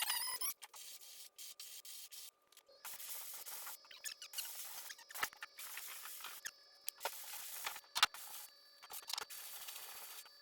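Sanding body filler on a truck panel: a quiet, scratchy hiss that stops and starts, with a few sharp clicks.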